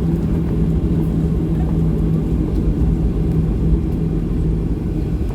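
Boeing 737-800's CFM56-7B jet engines heard from inside the passenger cabin: a steady, loud, deep rumble with a constant low hum underneath.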